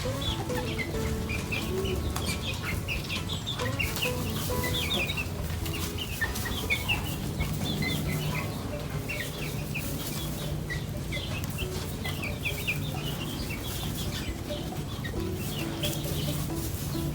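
Chickens clucking, with many short high chirps scattered throughout over a steady low hum.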